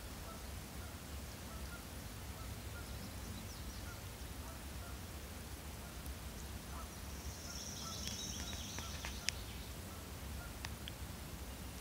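Outdoor ambience with a steady low rumble and faint bird calls. A brief burst of high chirping comes about eight seconds in, followed by a few sharp clicks.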